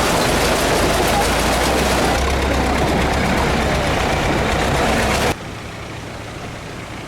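Vehicle engine rumbling under a loud rushing noise like wind on the microphone; about five seconds in it cuts abruptly to a quieter, steady engine hum.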